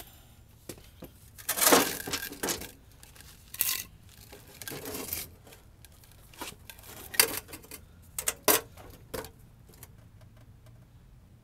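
Steel bumper of an 1987 GMC Jimmy being shifted about and set down on a wooden beam: scattered metal clanks and scrapes, the sharpest and loudest about seven and eight and a half seconds in.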